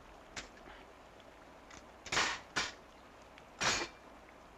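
Metal clacks of a belt-fed machine gun's mechanism being worked while its headspace is set. A faint click, then two loud sharp clacks close together about two seconds in and a third about a second and a half later.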